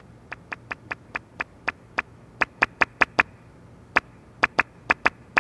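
A run of about twenty short, sharp clicks, each one separate and dry. They start a few to the second, quicken, pause for about a second a little past the middle, then go on again.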